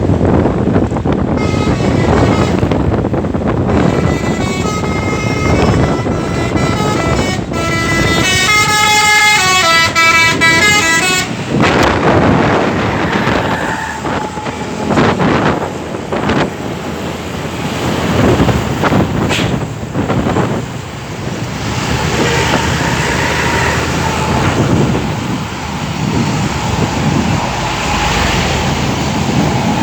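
Indonesian 'telolet' bus horn, a multi-tone air horn playing a stepping, chord-like melody for about ten seconds. After that, loud road and traffic noise from the moving bus and passing vehicles takes over.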